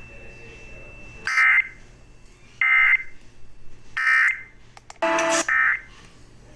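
Emergency Alert System SAME digital data tones: five short buzzy bursts, each under half a second, roughly a second apart.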